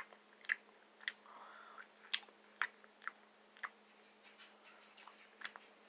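A person chewing a jelly bean with the mouth close to the microphone: faint sharp chewing clicks about twice a second, growing sparser and fainter after about four seconds.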